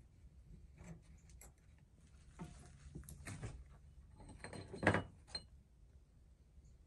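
Soft scuffs and small clicks of someone moving about on a debris-strewn floor, with one louder knock just before five seconds in.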